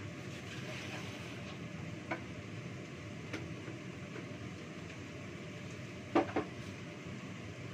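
Kitchenware being handled at a sink: a few light clinks, then two louder knocks close together about six seconds in, over a steady background hum.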